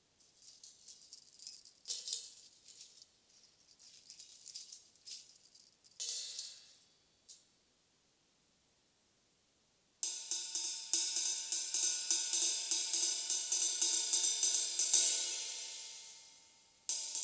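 Tambourine-style jingles of a Bling Ring clamped on a dark Meinl cymbal: scattered light jingling with a couple of stronger taps. After a few seconds of silence, the cymbal is played with sticks at about four strokes a second, the jingles rattling along with the ringing cymbal, until one louder stroke is left to ring and fade.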